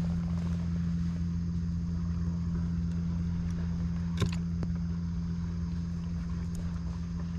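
Steady low drone of an engine, with a single sharp click about four seconds in.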